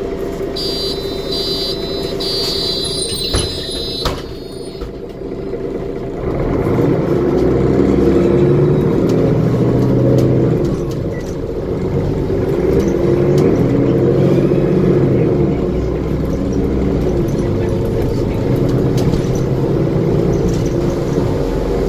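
Inside a Mercedes Conecto G articulated bus: a run of electronic beeps and two knocks, then the Mercedes OM457LA diesel pulls hard as the bus moves off, its pitch rising and dropping through the Voith D864.5 four-speed automatic's gear changes, with a kickdown about ten seconds in.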